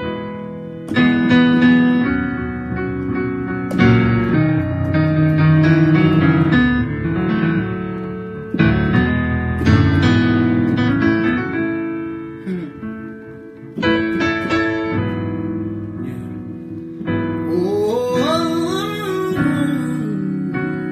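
Electric piano playing slow, sustained chords in a gospel worship style. Near the end a voice sings a short wordless, gliding run over the chords.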